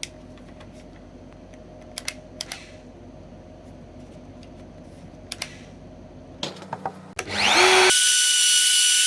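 Low steady hum with a few sharp clicks, then about seven seconds in a router motor spins up with a fast rising whine and runs loud and steady at full speed, ready for a shallow pass with the bit.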